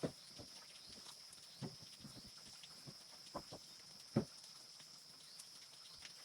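A handful of irregular dull knocks and thumps, the loudest right at the start and about four seconds in, over a steady high-pitched insect drone.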